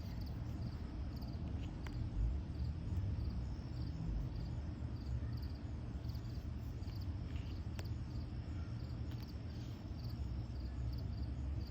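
Steady low background hum with a faint, regularly repeating high-pitched chirping. A few light clicks of playing cards being handled come about 2 seconds in and again near 8 seconds.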